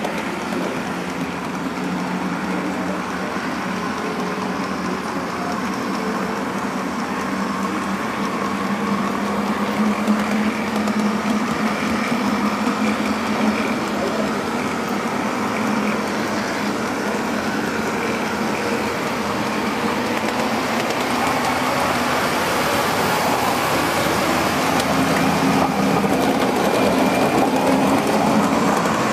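O scale model train running along the track, heard from a camera riding on it: a steady mechanical running noise of the drive and the wheels on the rails, getting slowly louder.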